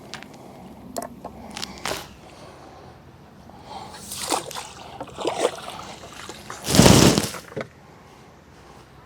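Water sloshing and splashing, with a few small clicks and knocks in the first two seconds and one louder splash about seven seconds in.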